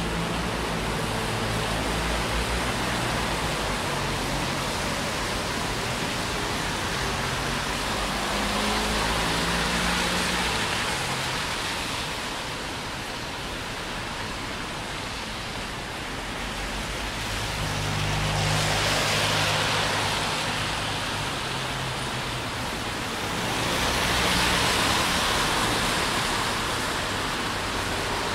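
Steady hiss of rain with cars passing on a wet road; the tyre hiss swells three times, about ten, nineteen and twenty-five seconds in, the first two with a low engine hum.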